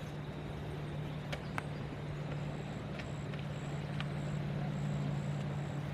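A vehicle engine running with a steady low drone, with a few faint ticks over it.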